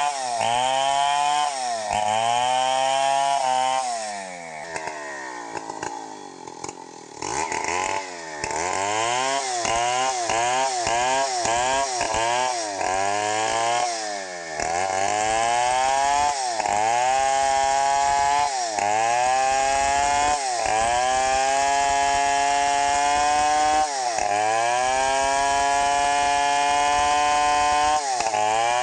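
Stihl 070 two-stroke chainsaw ripping lengthwise through a teak log, its revs dipping and climbing back over and over as the chain cuts. The engine drops to a lower, quieter running for a few seconds around four seconds in, then holds high revs in longer runs with short dips near the end.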